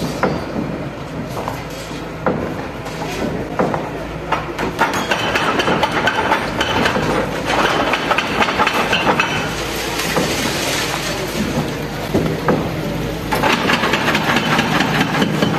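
Wheeled excavator demolishing a brick and concrete building: its engine runs under a dense clatter of cracking, clanking and crashing masonry and rubble as walls are broken and fall. The clatter grows busier about five seconds in, eases briefly around twelve seconds, then picks up again.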